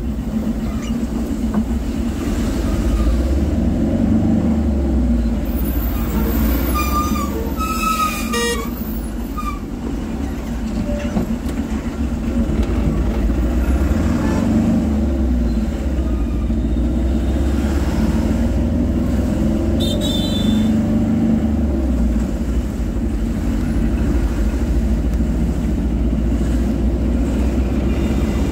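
Steady rumble of a moving road vehicle heard from inside, with tyre noise on a wet road. A vehicle horn honks briefly about eight seconds in, and a short higher tone sounds around twenty seconds.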